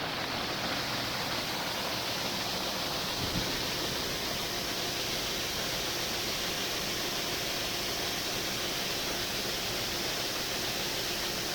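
Steady, even rushing noise with a faint hum underneath.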